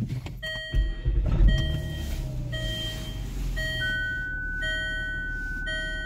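Electronic chime beeping about once a second, six times, each beep a short multi-tone ding, with a long steady higher beep joining about two-thirds of the way through. Underneath is the low steady idle of the LR2's petrol inline-six, with a couple of low bumps of handling noise about a second in.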